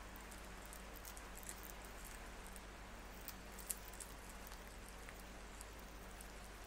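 Faint crackle and rustle of dry, papery garlic skins being peeled by hand off crushed cloves, with small scattered clicks and one sharper click about three and a half seconds in.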